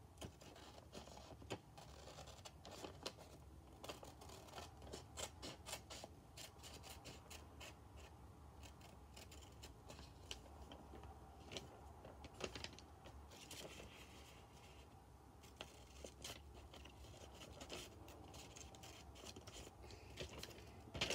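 Scissors cutting a sheet of notebook paper: faint, irregular snips one after another as the shape is cut out along a traced line.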